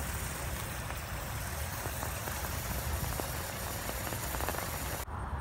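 Lump of sodium metal burning on damp ground, sizzling with a steady crackling hiss that suddenly thins out about five seconds in.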